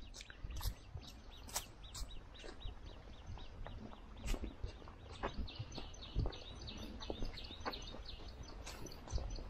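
Small birds chirping in quick repeated series, with scattered clicks and knocks from footsteps and handling as the camera is carried along, over a low rumble.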